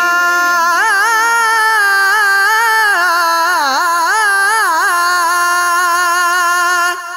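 Male voice singing a naat, holding one long drawn-out note that wavers and turns in ornamented runs. It stops shortly before the end.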